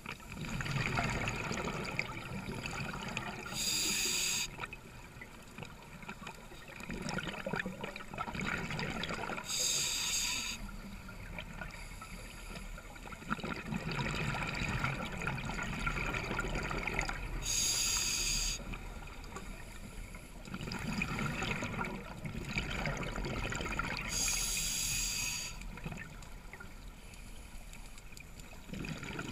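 Scuba diver breathing on a regulator underwater: rumbling exhaled bubbles, then a short sharp hiss of inhalation, repeating in a steady cycle about every six to seven seconds, four breaths in all.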